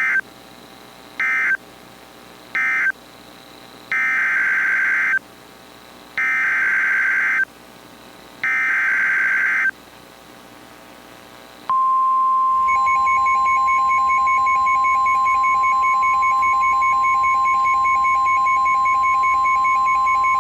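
Emergency Alert System data tones: three short buzzing bursts of the end-of-message code, then three longer bursts of the next alert's header. A steady 1050 Hz NOAA Weather Radio warning alarm tone then sounds for about nine seconds, with a fainter pulsing tone alongside.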